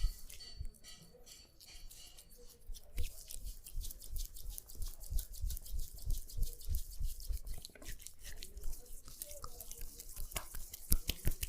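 Barber's razor scraping through beard stubble in quick, short strokes, sparse at first and busier after about three seconds.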